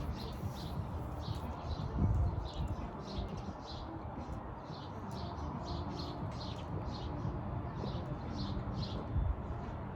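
A bird chirping over and over, short high chirps about two a second, over a steady low background noise.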